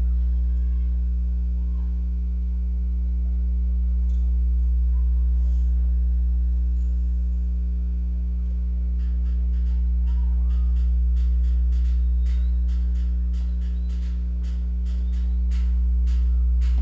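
Loud steady electrical hum from the sound system, with faint crowd voices. From about halfway, a run of sharp, even ticks, about three a second.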